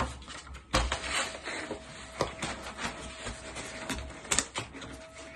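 Scattered clicks and light knocks of hand tools being handled and put down, the sharpest about a second in and near four seconds in, over a faint steady hum.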